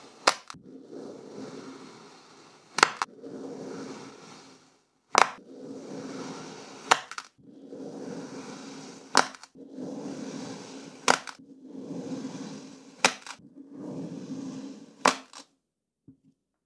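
Serrated plastic knife slicing through a block of kinetic sand: a soft gritty scraping with each cut, and a sharp click roughly every two seconds as slices come away. The cutting stops shortly before the end.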